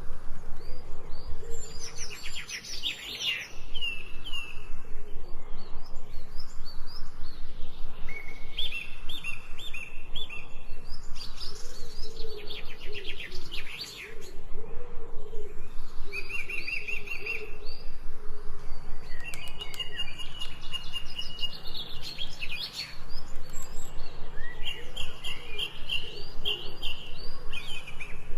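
Several wild birds singing and chirping, with short overlapping phrases of quick trills and whistled notes one after another. A fast, even pulsing runs underneath.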